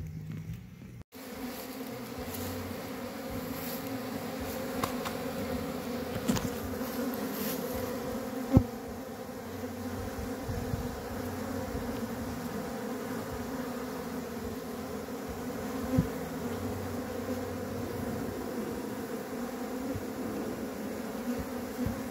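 Many honeybees buzzing in a steady hum at the entrance of a hive box as a rescued colony moves in. Two short sharp knocks stand out, one about eight seconds in and another about sixteen.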